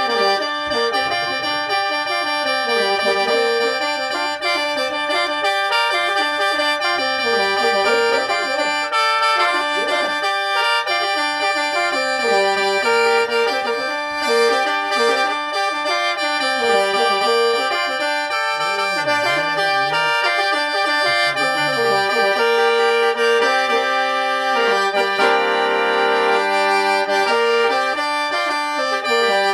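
Solo khaen, the Lao–Isan bamboo free-reed mouth organ, pitched in G minor and played in lai yai mode. A moving melody runs over several steady held drone notes, without a break.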